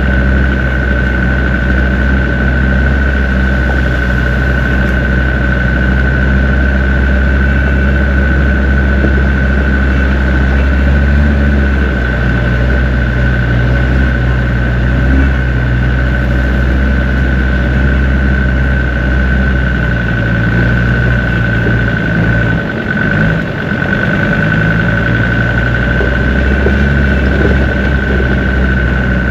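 Land Rover Discovery 2's Td5 five-cylinder turbodiesel engine running at low, steady revs as the truck crawls along a rough gravel lane, with a steady high whine over the engine note.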